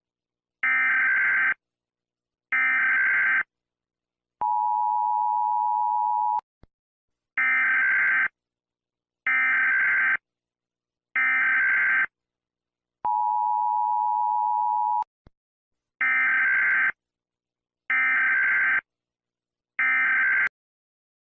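Emergency Alert System–style warning tones: harsh one-second bursts of screeching data, about a second apart, twice broken by a steady two-second two-note attention tone. The order is two bursts, the tone, three bursts, the tone again, then three more bursts.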